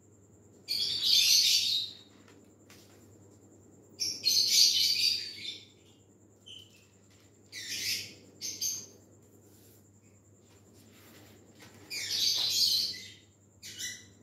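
Thin kite paper rustling and crinkling as hands fold and press it down, in about six short bursts of a second or less with pauses between.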